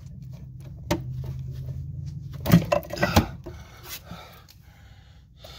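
Metal clanks from a pry bar and a freed CV axle being handled under a minivan: a sharp click about a second in, then a cluster of loud clanks around the middle, over a low steady hum.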